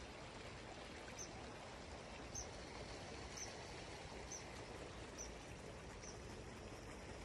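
Faint, steady rush of flowing water, with a bird's short high chirp repeated about once a second, six times.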